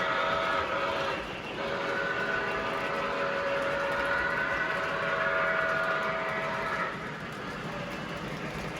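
Model locomotive's sound unit blowing its horn: a steady chord that breaks off briefly about a second in, then sounds again in a long blast that stops about seven seconds in.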